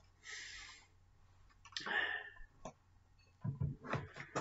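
A man's quiet breathing and a few small clicks and soft knocks as he shifts in front of the microphone.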